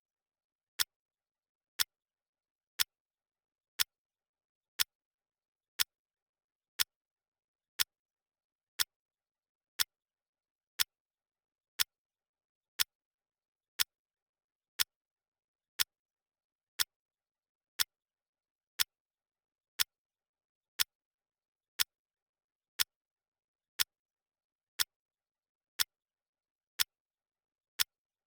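Clock ticking sound of a countdown timer: sharp, even ticks once a second, with silence between them.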